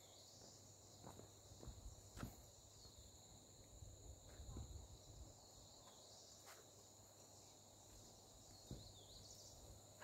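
Faint, steady high-pitched chorus of insects, crickets, with a few soft footsteps scattered through.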